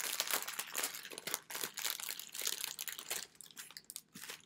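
Clear plastic packaging of a cloth face mask crinkling as it is handled and opened, a dense continuous crackle that eases off near the end.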